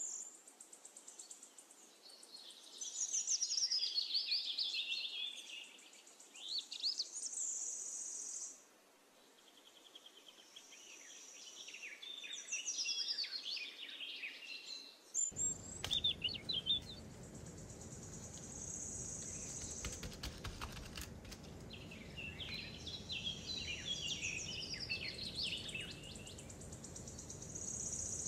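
Several birds chirping and singing in quick, rising and falling calls, with a high trilling note now and then. About halfway through, a low steady background hum joins in.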